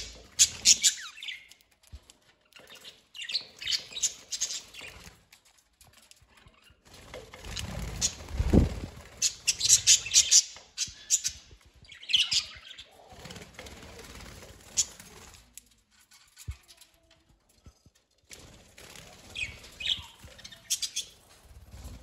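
Budgerigars chirping and chattering in short bursts of rapid high calls every few seconds, with wings fluttering among them. A dull knock about eight seconds in.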